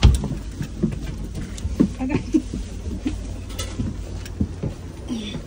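Footsteps and knocks on the carpeted stairs of a bi-level train car, irregular over a steady low rumble.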